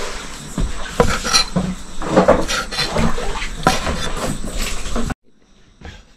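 Clatter of cookware and utensils: a string of sharp knocks and clinks as dishes and pots are handled. It cuts off suddenly about five seconds in, leaving a much quieter background.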